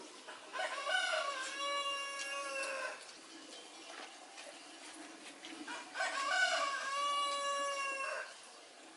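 Rooster crowing twice, each crow about two and a half seconds long, several seconds apart.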